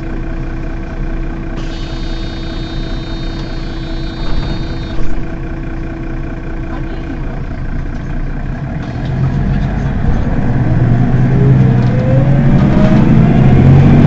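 Mercedes-Benz Citaro city bus diesel engine idling at a stop, with a high thin tone for about three seconds early on and a short loud burst about five seconds in. From about nine seconds in, engine sound rises in pitch and grows steadily louder.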